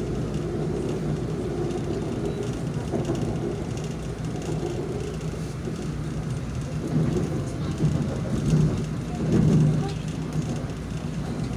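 Running noise of an LRT-2 light-rail car heard from inside: a steady low rumble of wheels on rail with a humming tone from the drive, swelling briefly about nine to ten seconds in.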